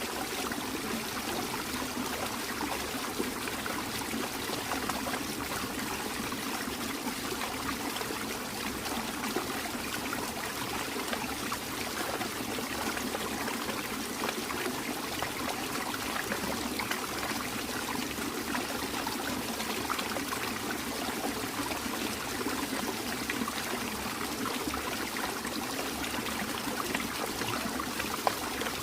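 Very small waterfall trickling, a steady splashing flow of water.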